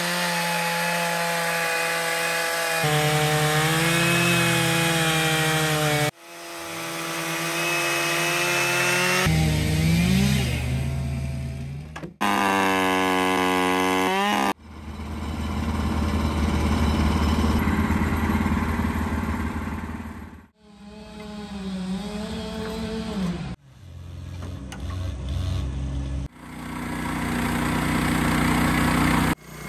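Petrol chainsaws running at high revs, rising and falling with the throttle, as they mill dawn redwood: the saw in an Alaskan mill ripping a log and a chainsaw ripping a slab, alternating with the engine of a portable bandsaw mill running steadily as it cuts boards. The sound changes abruptly every few seconds as short clips are joined together.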